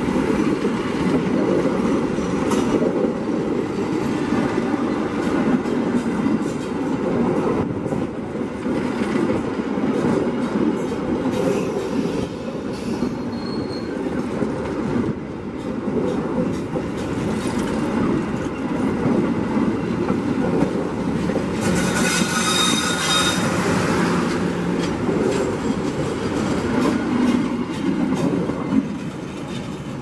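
Passenger train coaches rolling past at close range over freshly relaid rail on concrete sleepers: a steady rumble of wheels on rail with scattered clicks. A short high squeal comes about twenty-two seconds in, and the noise eases slightly as the last coach passes near the end.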